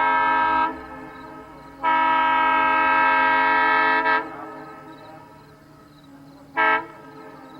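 Nathan M3 locomotive air horn blown in separate chord blasts. One blast cuts off about half a second in, then a long blast of about two seconds ends with a quick extra toot, and a short toot comes near the end.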